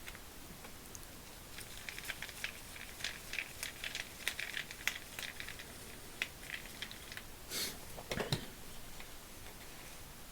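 Torx T10 screwdriver unscrewing the small cover-plate screws on a Pittsburgh Pro 1/2-inch ratchet, with many faint, quick clicks and ticks. Two slightly louder handling noises come near eight seconds in.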